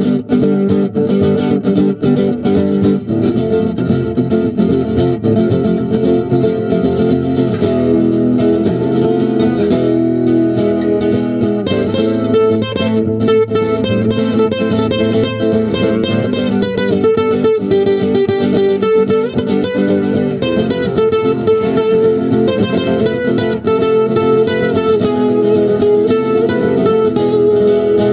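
Guitar music playing without a break.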